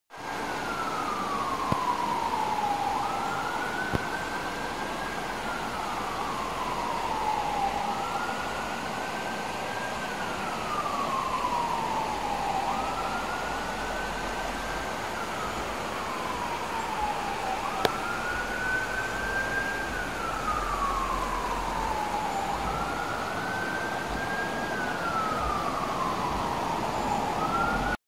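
A siren wailing: a single tone that slides slowly down, then quickly back up, over and over, about every five seconds, over steady background hiss. Two sharp clicks sound partway through.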